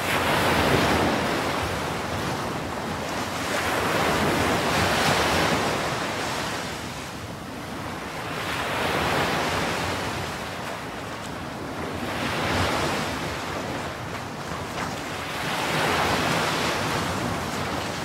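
Ocean surf: waves washing in and drawing back in five slow swells, about every four seconds.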